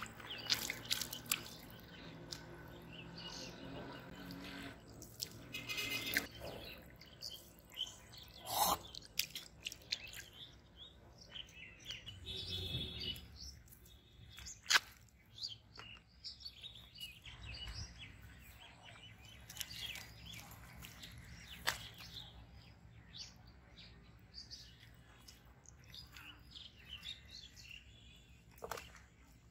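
Birds chirping and calling over a quiet open-air background, with scattered sharp clicks and taps.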